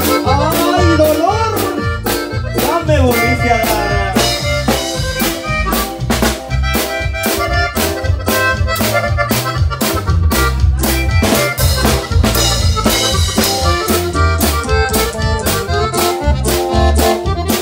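Live band music: a button accordion playing the melody over a drum kit keeping a steady, fast beat.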